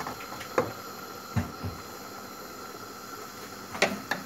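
Wooden spoon stirring chopped red peppers in a stainless steel stockpot, knocking against the pot a few times, over the steady hiss of the pot heating on a gas stove.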